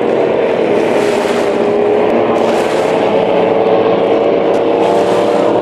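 Engines of several water ski race boats running at full speed: a loud, steady drone of overlapping engine notes whose pitches drift slowly.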